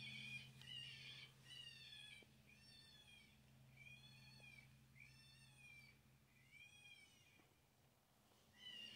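Faint, repeated high mewing calls, each rising and falling, about one a second, fading away after the first couple of seconds, over a low steady hum.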